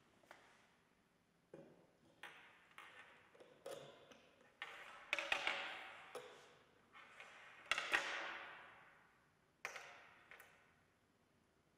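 Quiet clicks, taps and clinks of laboratory apparatus being handled: a glass discharge tube and its metal stand set down, and wires and clips fastened to an induction coil's terminals. The two loudest knocks, a few seconds apart, ring on for about a second.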